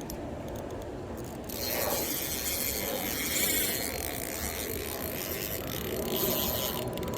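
Fishing reel ratcheting while a large fish pulls against the line, louder from about a second and a half in.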